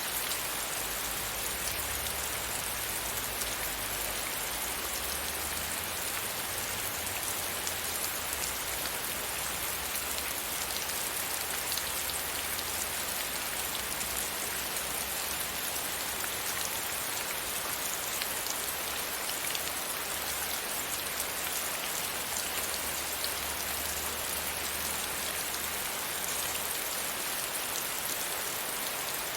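Steady rain hitting a window pane, a dense, even hiss of drops. A faint low rumble underneath fades in and out.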